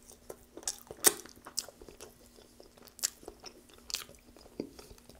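A person chewing food close to the microphone: soft wet mouth clicks with a few sharper ones, over a faint steady hum.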